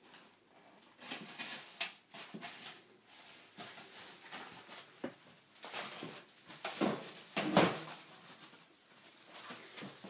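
Irregular rustling, scraping and light knocks from a cat rummaging for food, with the loudest cluster of noises a little over halfway through.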